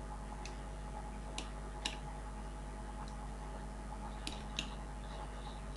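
Faint computer mouse clicks, about six scattered irregularly, over a steady low electrical hum.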